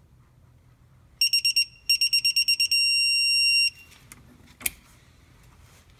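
Digital torque wrench beeping as the oil drain plug is tightened: two runs of rapid high beeps, then a steady tone about a second long, the wrench's signal that the set torque of 30 N·m has been reached. One sharp click follows about a second later.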